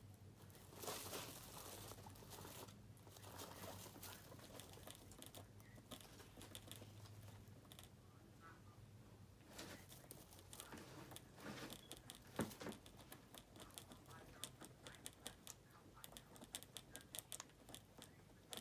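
Faint rustling of guinea pigs moving through hay bedding, then a guinea pig drinking from a water bottle's metal sipper spout: quick, irregular clicking ticks from about halfway through that grow denser toward the end.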